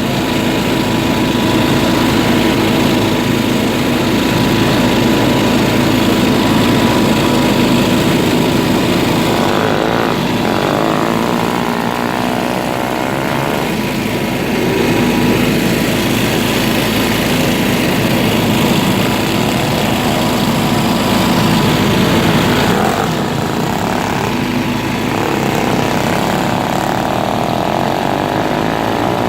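An off-road vehicle's engine running steadily, its pitch and note shifting a third of the way in and again near the end.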